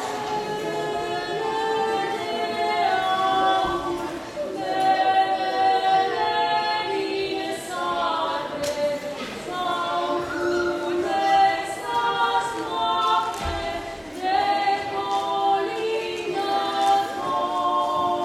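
Two women singing a Romanian Christmas carol (colindă) together without accompaniment, holding long notes that move in steps from one pitch to the next.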